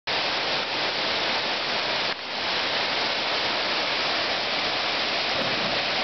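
Waterfall pouring into a rock pool: a steady hiss of falling water that dips briefly about two seconds in.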